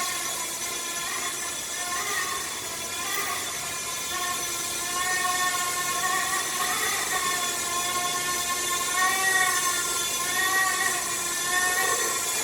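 RC ERA C189 model helicopter's electric motor and rotor whining as it flies, the pitch wavering up and down with the throttle.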